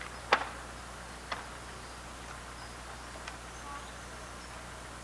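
Level-crossing gate being latched shut: a sharp click about a third of a second in, a fainter click a second later and a small tick near three seconds, over a faint steady background.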